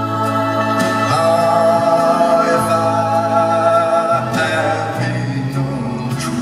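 Live band music: a song with singing over long held notes and chords.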